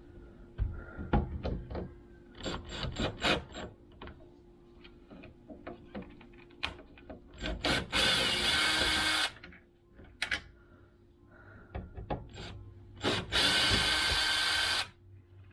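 Tools and wooden parts knocking and clicking as they are handled, then a power drill run in two short bursts, each about a second and a half.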